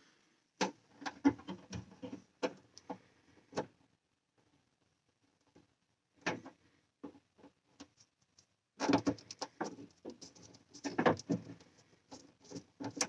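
Small clicks and scraping of hand tools and fingers working on electrical wire ends: trimming the house wiring and hood leads for splicing. Scattered snips and rustles, a quiet pause in the middle, then busier handling near the end.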